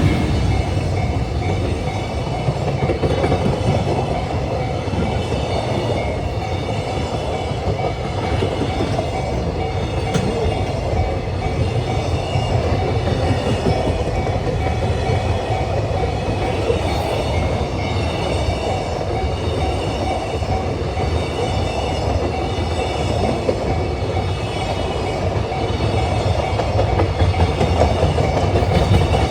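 Freight train of Koki container flatcars rolling past close by: a steady, loud rumble with the clickety-clack of wheels over rail joints.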